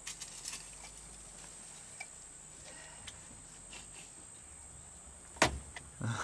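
Steady high-pitched insect chorus, like crickets, with scattered light clicks and one sharp click about five seconds in.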